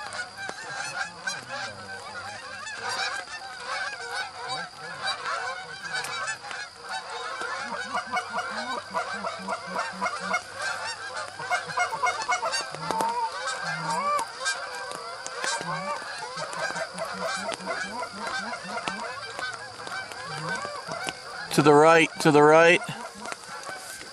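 A large flock of Canada geese honking, a dense chorus of many overlapping calls. Near the end two much louder honks ring out close by.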